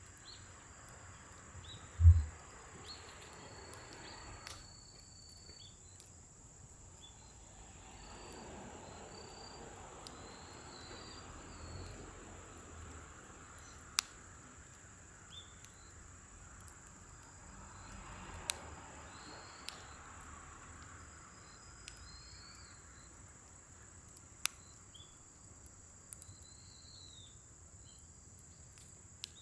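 Scrap-wood fire burning in a steel fire pit: scattered sharp crackles and pops with a soft rushing of flame that swells and fades twice, and a loud low thump about two seconds in. Insects trill steadily underneath.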